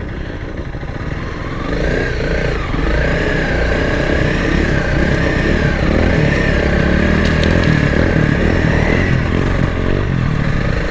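Honda CRF300L Rally's single-cylinder engine pulling away on the move, rising about two seconds in and then running at a steady throttle, with a wavering whine above it.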